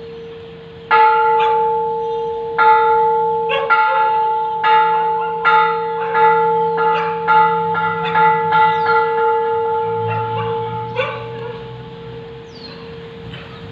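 Thai temple bell struck by hand about a dozen times, each stroke ringing on into the next with a steady hum. The strokes start about a second and a half apart and come faster, under a second apart, through the middle, then stop about two-thirds of the way in while the ringing dies away.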